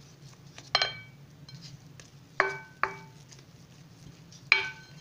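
Mixing bowl knocking and ringing briefly four times as sticky yeast dough is kneaded by hand in it: once near the start, twice in quick succession in the middle, and once near the end.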